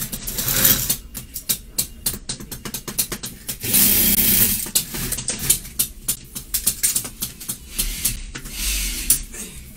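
Rustling and rubbing of surgical masks as they are handled, with many irregular sharp clicks and three louder noisy bursts, each about a second long, near the start, around four seconds in and near the end.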